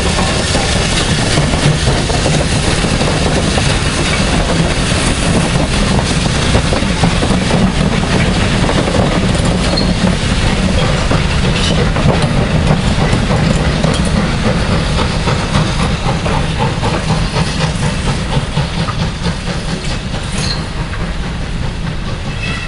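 Train running past on the track, its wheels clattering over the rail joints, dying away near the end.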